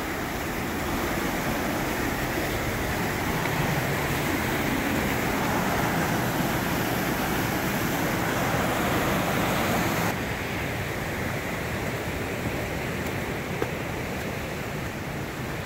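Creek cascades rushing steadily, the water pounding and running high after heavy rain. The rush drops a little about ten seconds in.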